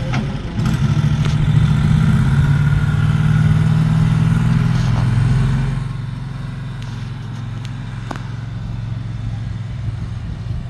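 Utility cart's engine running as it drives off, a steady low drone that drops in level about halfway through and carries on more faintly.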